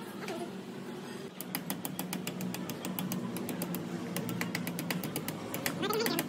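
A small machine running with a steady low hum. About a second in, rapid, even clicking starts, about five or six clicks a second, and continues.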